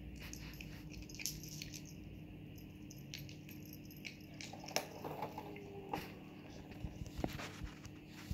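Light, scattered metallic clicks and clinks from a cat's collar tag and small bell as the cat moves its head about and picks at food, busiest in the middle of the stretch, over a faint steady hum.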